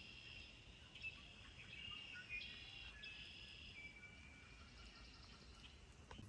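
Faint chorus of birds calling and trilling, with overlapping high, even-pitched trills of about a second each.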